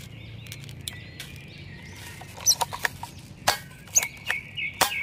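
Toy pump-action shotgun being worked and fired: a quick run of sharp plastic clicks and snaps starting about halfway through. Birds chirp faintly throughout.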